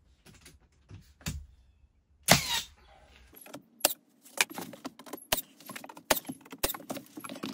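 Sharp knocks and light metallic clinks from tools and wood being handled while paneling. One louder hit comes about two seconds in, followed by a run of quick clicks about every half second.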